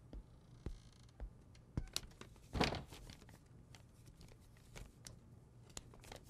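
A few soft footsteps, then paper crinkling and rustling as a bundle of banknotes wrapped in a sheet of paper is handled. The loudest rustle comes about two and a half seconds in.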